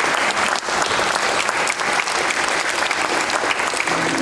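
Audience applauding, a dense patter of many hands clapping; a few held notes of music come in just before the end.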